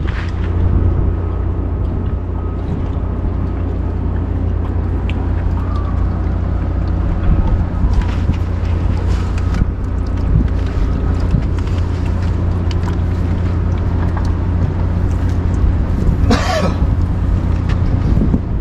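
Wind buffeting the microphone over a steady, even low mechanical drone. A short, harsh noise cuts in about sixteen seconds in.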